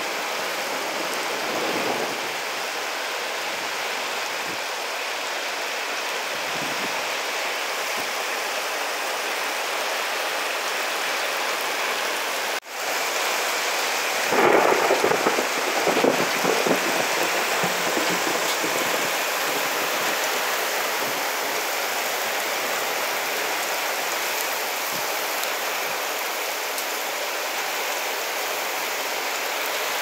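Heavy rain pouring steadily onto corrugated roofs during a thunderstorm. A few seconds of thunder rumble about halfway through are the loudest part.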